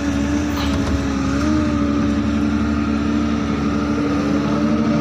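Excavator's diesel engine running with a steady drone, dipping slightly in pitch about a second in.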